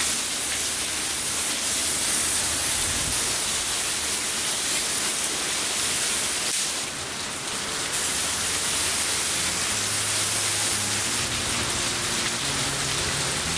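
Steady hiss of compressed air from a gravity-feed paint spray gun laying on flake-filled clear coat, mixed with the rushing air of a box fan.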